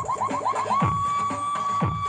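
Electronic dance remix played loud through a mini sound system. A fast run of short rising synth blips turns into one held high synth tone, and a deep drum hit that drops in pitch lands about a second in and again near the end.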